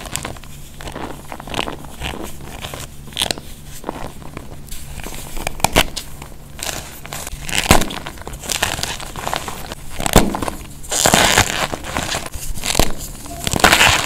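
A cornstarch-coated block of gym chalk being squeezed and crumbled by hand in a bowl of cornstarch: squeaky, crunchy crackling from the packed powder and the breaking chalk, with louder bursts of crunching about eleven seconds in and again near the end.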